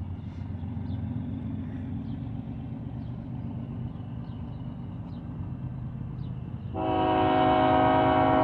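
Low rumble of an approaching diesel freight train, then about seven seconds in its lead locomotive's air horn suddenly sounds, a loud chord of several notes held steady.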